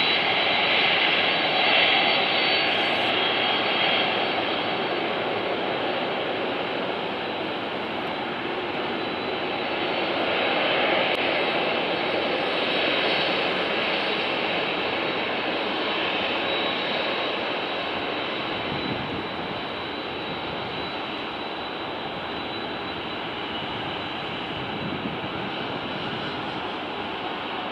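Boeing 767-300ER's twin General Electric CF6-80C2 turbofans running at taxi power: a steady jet rumble with a thin high fan whine, slowly growing quieter as the airliner taxis away and turns.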